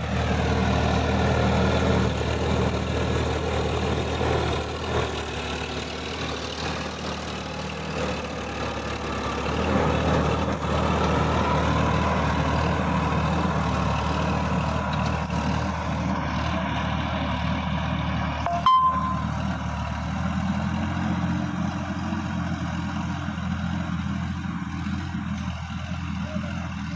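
Sonalika DI-50 RX tractor's diesel engine running steadily under load, driving a rotary tiller through dry soil, with a single sharp click about two-thirds of the way in.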